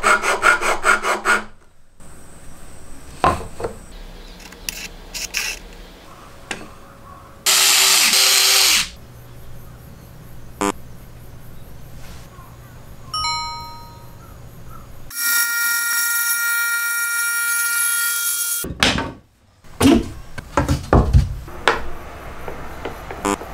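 A string of workshop sounds. It opens with a metal file rasping rhythmically along a plywood edge, then scattered clicks and knocks and a brief loud burst of noise. A jigsaw motor then runs with a steady whine for about three seconds, followed by a run of knocks near the end.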